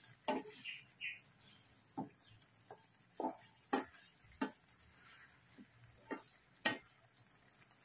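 Wooden spatula stirring shrimp in sauce in a frying pan, knocking and scraping against the pan in a dozen or so irregular taps, about one or two a second.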